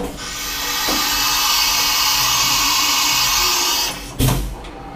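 Fadal CNC vertical machining center making an automatic tool change to tool 21: a steady hiss of compressed air for almost four seconds, then a heavy clunk as the change finishes.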